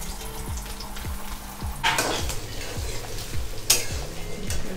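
Chopped onions dropped into hot oil in an aluminium kadai, bursting into a sudden sizzle about two seconds in and frying on. A metal spatula stirs them, with a sharp clack against the pan near the end.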